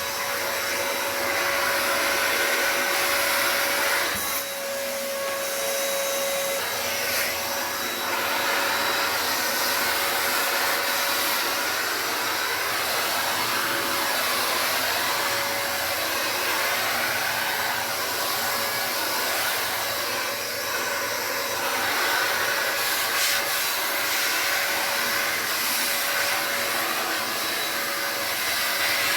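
VO.TEMM 4-in-1 vacuum cleaner running steadily with a high whine, its nozzle working over a dusty surface, with brief dips in the noise about four seconds in and again near twenty seconds.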